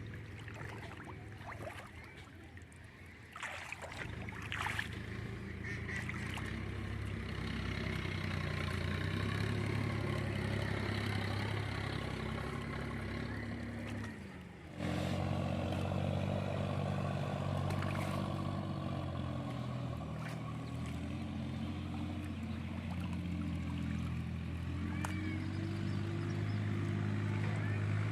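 A small engine running steadily, its pitch slowly rising and falling. It dips and breaks off abruptly about fifteen seconds in, then runs on.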